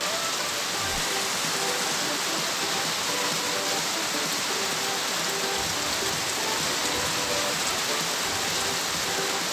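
Heavy rain pouring steadily, a dense even hiss of a downpour on foliage, ground and standing water.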